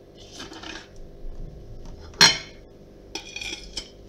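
A metal knife scraping and clinking against the metal cake pan and a plate while a slice of cake is lifted out, with one loud clank about two seconds in and a few more light clinks near the end.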